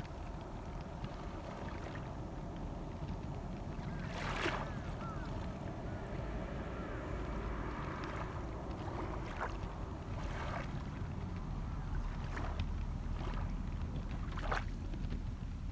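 Small waves washing onto a shore over a steady low wind rumble. Several short washes come in the second half.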